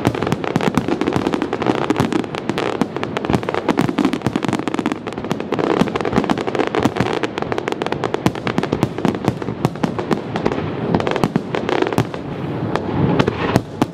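Fireworks display: aerial shells bursting in a dense, continuous barrage of rapid overlapping bangs, thinning a little near the end.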